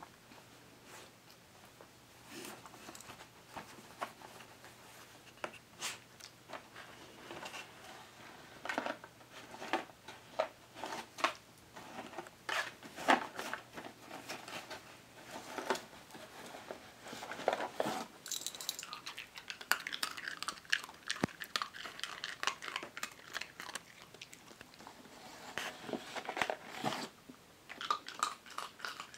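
Miniature dachshund crunching hard Milk-Bone dog biscuits and rummaging in the cardboard box: irregular crunches and crackles throughout.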